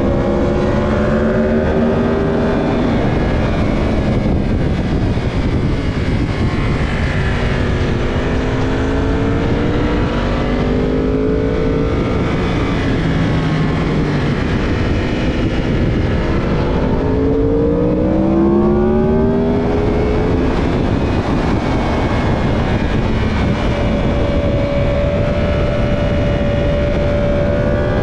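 Racing motorcycle's engine heard onboard at track speed, its note climbing in several runs as it accelerates and holding steadier near the end, over a heavy rush of wind on the microphone.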